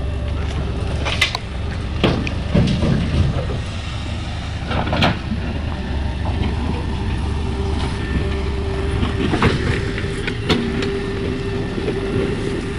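JCB 3DX backhoe loader's diesel engine running steadily under digging load, a low rumble with a steady droning tone over it. A handful of sharp clanks and scrapes come from the backhoe bucket working the soil.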